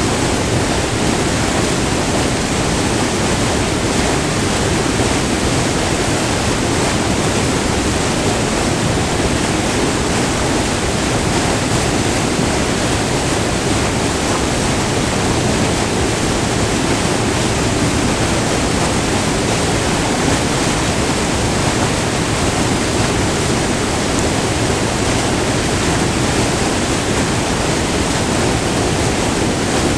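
Furnace Falls, a short multi-tiered waterfall, recorded close up: white water rushing over the falls in a loud, steady roar.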